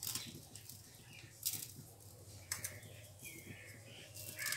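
White sesame seeds sprinkled by hand onto egg-washed buns on a metal baking tray, a few faint, brief patters as the seeds land.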